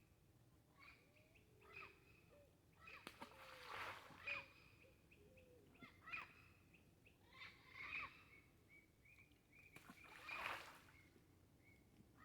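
Faint birds calling repeatedly outdoors: short chirps with sweeping pitch and held high notes every second or so. There are two brief, louder rushes of noise, about four and ten seconds in.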